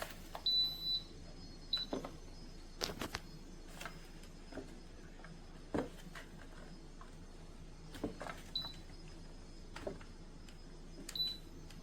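Clicks and knocks of a small device being handled, with a few short high electronic beeps, the first about half a second in and longer, the others brief.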